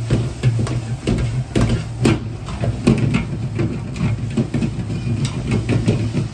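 A metal ladle clanks and scrapes against a wok as noodles and cabbage are stir-fried and tossed, with irregular clanks over the steady low rumble of a gas wok burner.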